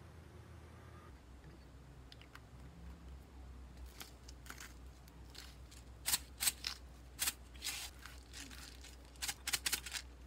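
Salt shaken into a mug in a run of short, sharp rattles about six seconds in, then a hand pepper grinder twisted in quick crisp clicks near the end.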